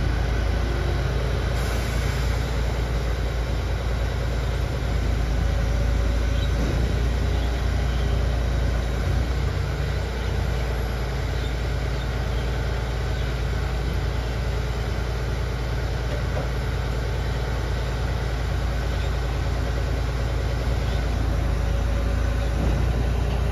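Mercedes-Benz Arocs 2830 6x4 rubbish truck's diesel engine idling with a steady low rumble.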